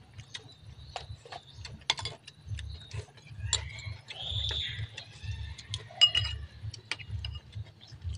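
Spoons and fingers clinking and tapping on ceramic bowls and plates during a meal, a string of small sharp clicks. A brief high-pitched sound comes about four seconds in.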